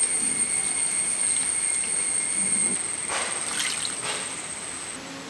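Water pouring from a clay bowl into a clay pot of masala-coated sardines, followed about three seconds in by a hand sloshing and mixing the watery curry.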